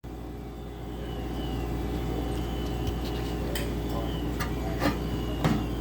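A handful of short, sharp clicks and knocks, the loudest two near the end, over a steady low hum.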